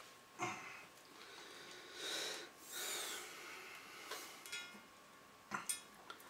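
Adhesive tape being pulled off the roll and laid along the arch frame by hand: several short noisy bursts of peeling tape, with a few sharp handling clicks in between.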